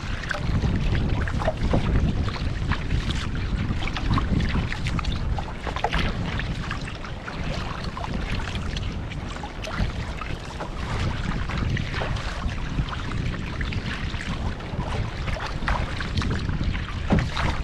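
Wind buffeting the microphone, with water splashing and slapping against a kayak in choppy waves.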